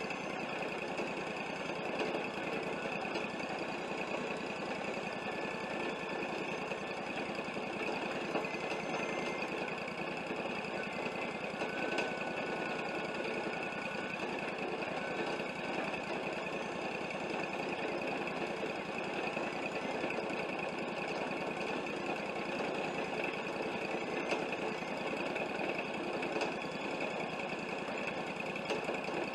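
Wood-Mizer LT40 portable bandsaw mill running steadily with an even engine drone.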